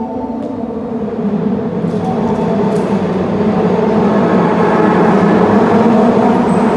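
Subway train running alongside the platform, its rumble growing steadily louder.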